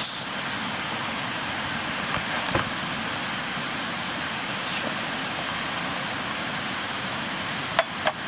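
A steady rushing hiss, with a faint click about two and a half seconds in and two short clicks near the end.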